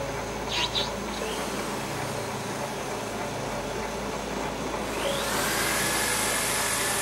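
WEISS WBL290F bench lathe running, its spindle turning steadily while a 26 TPI inch thread is cut. About five seconds in a louder high hiss with a thin whine joins, as the threading tool cuts.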